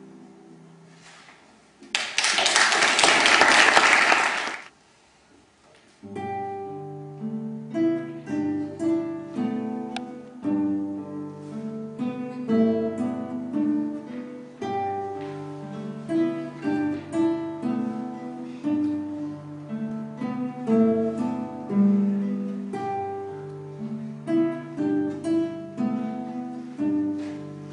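Two classical guitars played as a duet: a short piece ends, then about two seconds in comes a loud burst of noise lasting a couple of seconds. After a short pause, a new plucked piece starts about six seconds in, with a melody over a repeated low bass line.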